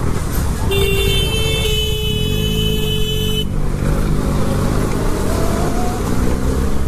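Riding noise from a motorcycle on the road, engine and wind rush, with a vehicle horn sounding steadily for nearly three seconds about a second in.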